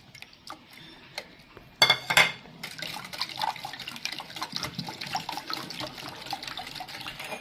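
Lemon juice, sugar and milk with lemon peel and mint leaves being stirred with a whisk in a bowl: liquid sloshing with quick small clicks of the whisk, which starts loudly about two seconds in and keeps going steadily.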